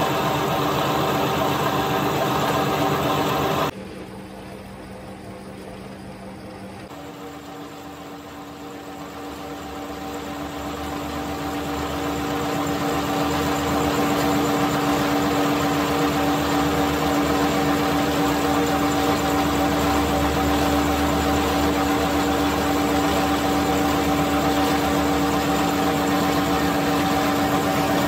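Metal lathe running and turning down a steel excavator bucket pin with a carbide cutting tool: a steady machine hum with a couple of clear, even tones. It drops quieter about four seconds in, then builds back up over several seconds to a steady level.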